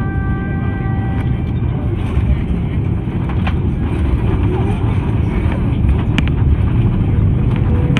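Airbus A330 cabin noise during landing: a steady low rumble that grows slightly louder towards the end, with a few light clicks. A held high tone of several pitches fades out about a second in.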